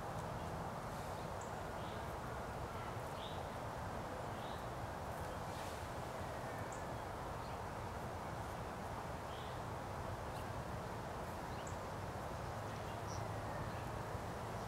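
Outdoor woodland ambience: a steady low hum and hiss, with faint, scattered short high chirps from small birds.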